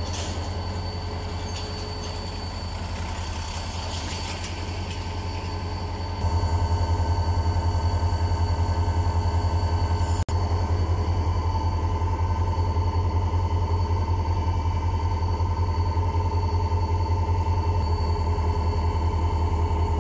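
A diesel locomotive rumbles at low speed as it hauls a second locomotive over a level crossing. The rumble gets louder about six seconds in. Under it, the crossing's warning signal sounds a steady, unbroken alarm tone.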